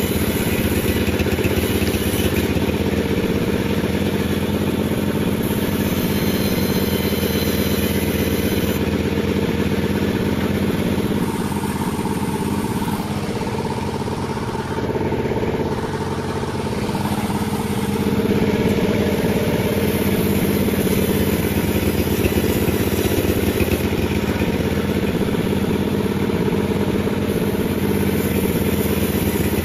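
Panda36 sawmill's engine running steadily, its level dipping a little for a few seconds around the middle.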